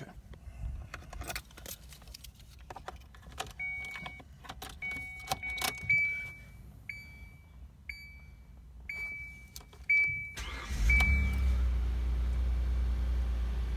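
Car keys jangling and clicking in the ignition, then a dashboard chime beeping about once a second for several seconds. About ten and a half seconds in the engine starts and settles into a steady idle.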